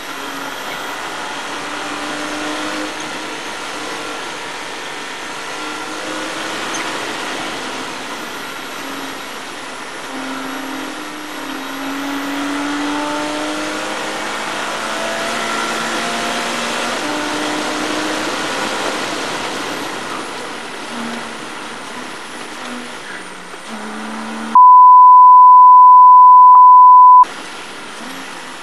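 Porsche Cayman race car's flat-six engine at speed, heard from inside the car, its pitch slowly rising and falling with speed. Near the end a loud steady beep tone cuts in for about two and a half seconds, replacing the car sound, and then stops.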